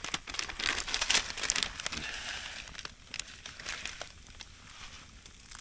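Crinkling of a plastic spice packet being handled: a dense run of crackly clicks for about two seconds, then softer rustling that thins out and fades toward the end.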